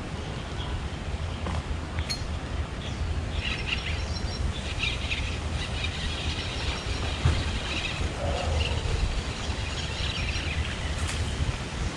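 Outdoor riverside ambience: a steady low rumble, with repeated bursts of high chirping from about three seconds in.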